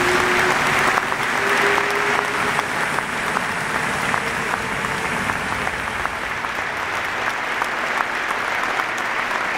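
Audience applauding: a dense, steady clatter of many hands clapping. Held music notes underneath fade out within the first few seconds.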